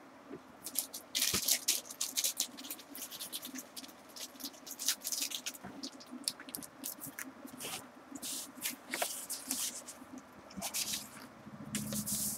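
Irregular rustling, crinkling and light knocks of craft supplies and their packaging being picked up and handled, in quick uneven bursts.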